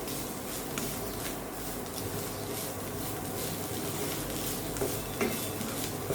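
Chopped bitter gourd, onion and grated coconut sizzling in oil in a pan as a spatula stirs them, with scattered scrapes and taps of the spatula against the pan.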